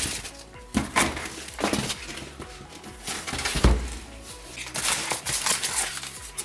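Background music with the rustling and knocking of cardboard boxes being handled, and one low thump a little past halfway as a box is set down on a desk.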